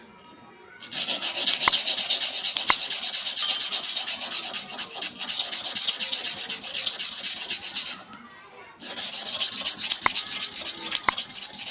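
A hair clipper blade is rubbed against an abrasive surface to sharpen it, making a steady, harsh rasp. The rasp runs in two long stretches, with a brief stop about eight seconds in.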